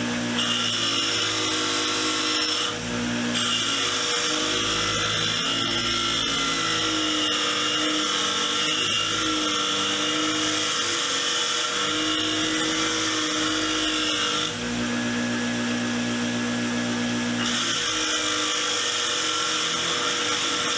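Power wire wheel scrubbing rust and grime off cast-iron vise parts, a steady motor hum under a harsh high brushing noise that breaks off briefly about three seconds in and again for a few seconds past the middle.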